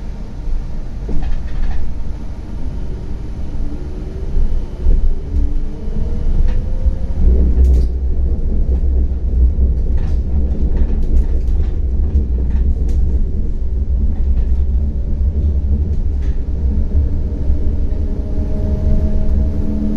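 Inside a CAF Urbos 100 low-floor tram on the move: a steady low rumble of the wheels on the rails, with the traction motors' whine rising in pitch as it gathers speed in the first seconds. Midway comes a run of sharp clicks and knocks from the wheels on the track, and a steady motor hum sets in near the end.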